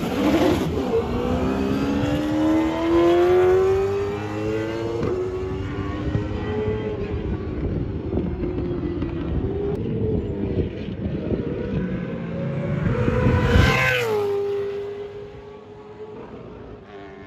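V8 Supercar race car engines at speed: one accelerates hard with its engine note climbing, then runs on steadily. About fourteen seconds in, a car goes past loud, its pitch dropping sharply as it passes, and its engine note fades away.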